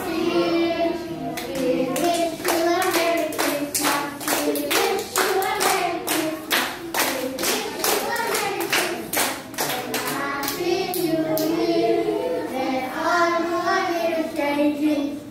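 A group singing a song, children's voices among them, with hands clapping along in a steady rhythm of about two claps a second. The clapping stops about ten seconds in while the singing carries on.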